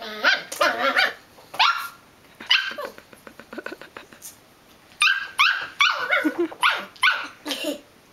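Belgian Malinois puppy barking at its own reflection in a mirror: short, high yaps that drop in pitch. One burst of barks comes at the start, then a quieter stretch, then a second quick run of about half a dozen barks that stops near the end.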